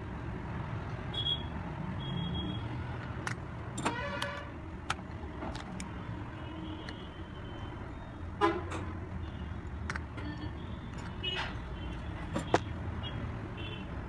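Steady low traffic rumble with two brief vehicle horn toots, about four and eight seconds in, and scattered light clicks and taps as a phone circuit board and small tools are handled on a bench.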